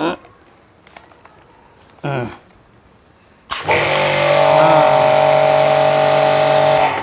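Cazar KS-CW140 2400-watt electric pressure washer firing its lance: about three and a half seconds in, a loud spray hiss starts suddenly, with the pump's steady hum underneath, and it stops near the end.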